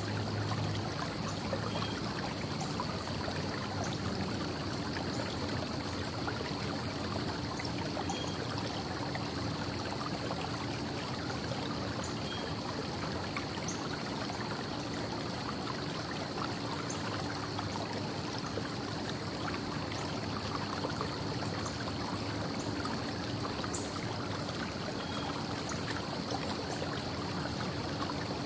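A steady, even rushing outdoor ambience, the continuous wash of distant traffic heard in a quiet early-morning setting. Under it sits a constant high hum, and there are faint short high chirps every second or two.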